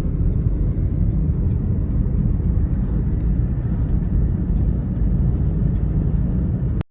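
Steady low rumble with no clear pitch, of the kind heard inside a moving vehicle or from wind on a microphone; it cuts off suddenly near the end.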